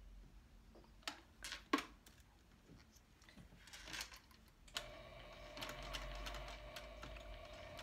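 A few sharp clicks as the fabric is set under the foot, then, from about five seconds in, a Juki sewing machine runs steadily, sewing a few slow stitches.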